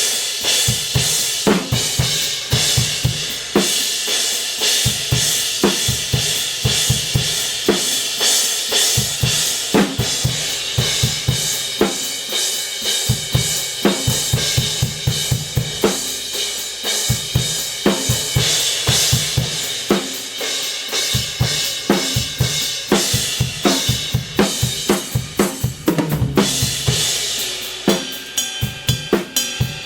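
Drum kit played in a steady groove of kick, snare and hi-hat, with Kingdo Artist Dark B20 bronze cymbals washing over it. The strokes come faster and denser near the end, like a fill.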